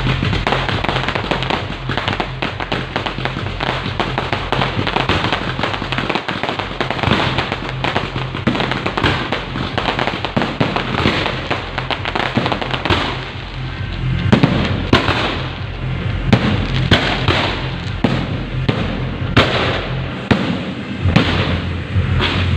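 Firecrackers crackling in a dense, irregular run of sharp pops, with music playing underneath.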